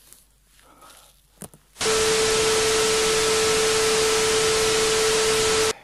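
Loud TV static hiss with a steady test tone running through it, a signal-loss glitch over colour bars. It starts suddenly about two seconds in and cuts off abruptly near the end.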